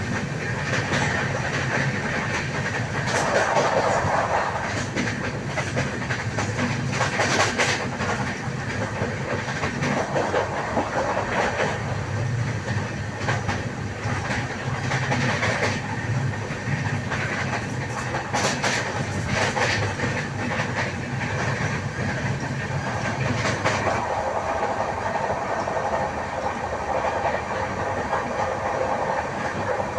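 Passenger train coaches rolling past on the rails with a clickety-clack over the rail joints, and repeated knocks from a wheel with a flat spot.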